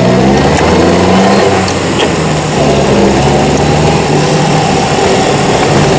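1938 Austin 10 Cambridge's four-cylinder side-valve engine pulling away and accelerating, rising in pitch, with a brief dip at a gear change about two and a half seconds in before it climbs again.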